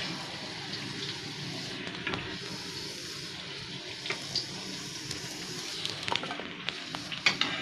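Hot oil sizzling steadily around besan-coated pea-pod fritters (bhaji) as they deep-fry, with a few small pops.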